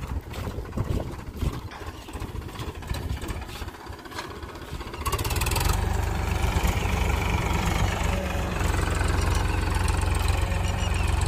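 Powertrac Euro 50 tractor's diesel engine running as it drives with a rotavator hitched behind, getting clearly louder about five seconds in as it comes close.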